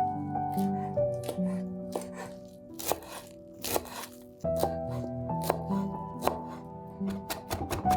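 Knife chopping food on a cutting board: a few separate cuts, then a quick even run of strokes near the end, over background music.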